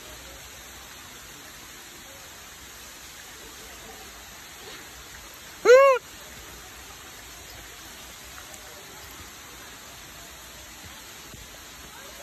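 Adult rhesus macaque giving a single short coo call about halfway through, a clear tone that rises and falls in pitch, over a steady background hiss.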